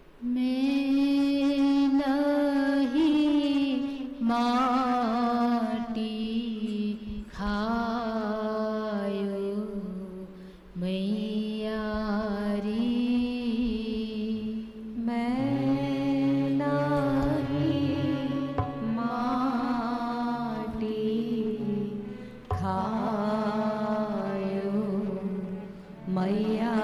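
A woman singing a Hindi devotional pada in slow, long melodic phrases with short breaks between them; a lower held note sounds under the voice for several seconds midway.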